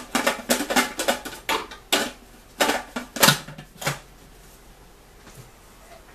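Plastic food processor bowl and lid being handled as garlic is loaded in: a quick series of hard plastic knocks and clicks that stops about four seconds in.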